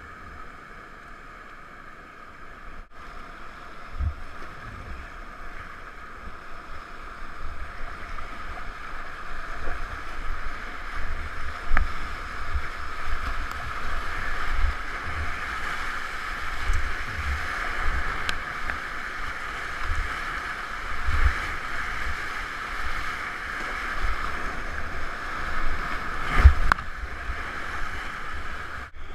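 Whitewater rapids rushing around a kayak as it is paddled through them, getting louder from about four seconds in, with irregular low thumps throughout.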